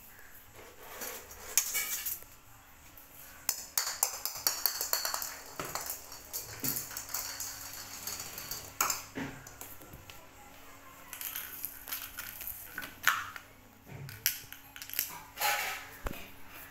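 Irregular clicks, taps and light scrapes, with a stretch of fluttering hiss a few seconds in, over a faint steady hum.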